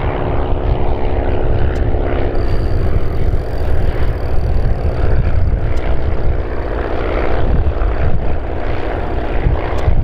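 Piston engine and propeller of a small single-engine training aircraft droning steadily as it comes in low to land, over a strong low rumble.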